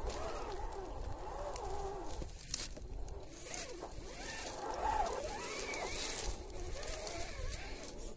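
Scale RC crawler's electric motor and gears whining, the pitch rising and falling as the throttle is worked, with the tyres scrabbling and crunching over dry dirt as the truck climbs.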